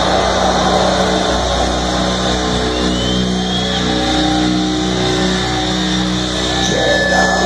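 Melodic death metal band playing live: heavily distorted guitars and bass come in over a low drone and hold long chords that change about once a second.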